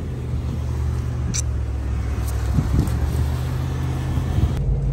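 Land Rover Discovery 2's V8 engine running steadily under load as the truck drives through soft beach sand, a continuous low drone.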